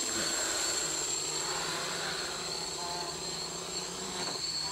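X650 quadcopter's brushless motors and propellers in flight, giving a steady high-pitched whine over a buzzing rush of air.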